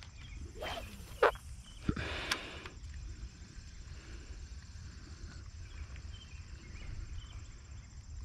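A spinning rod being cast. There is a whoosh about half a second in, a sharp short sound just after a second, and a click with a short burst as the line goes out. After that the spinning reel is cranked in quietly over a faint steady outdoor background.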